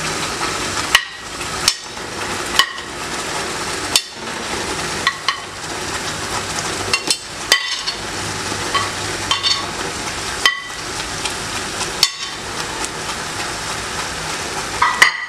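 A slotted metal spoon knocking and scraping against a plate and the rim of a metal pot, about a dozen sharp clinks at irregular intervals, over the steady sizzle of tomato sauce simmering.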